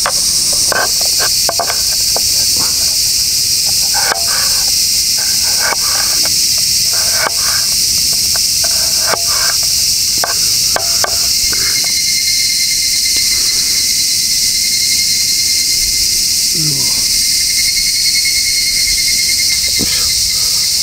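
Summer cicadas droning steadily in a high-pitched chorus. A second, rapidly pulsing insect song joins about halfway through. Short clicks and knocks come and go over the first half.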